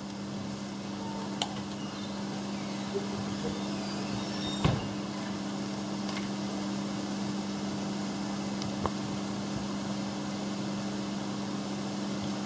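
A steady low machine hum in a workshop, with a few light clicks and one louder metallic knock about four and a half seconds in as the compression-gauge hose and fittings are handled on the engine's cylinder head.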